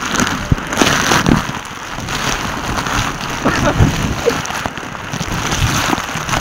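Heavy rain pouring down on stone steps, with wind buffeting the microphone in uneven gusts.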